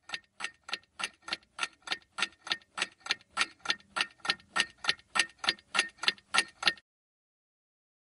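Clock ticking sound effect, about four quick ticks a second, growing gradually louder before stopping abruptly near the end: an edited time-passing cue.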